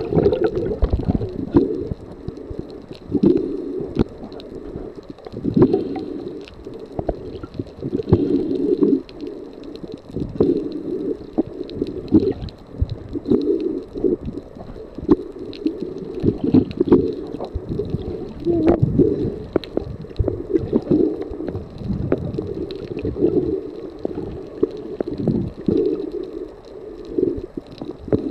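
Muffled underwater noise picked up by a camera just below the surface: water sloshing and gurgling in irregular surges every second or two, with scattered small clicks and knocks.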